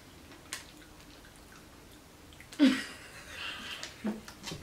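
A short, breathy laugh from a woman about two and a half seconds in, against quiet room tone with a few faint clicks.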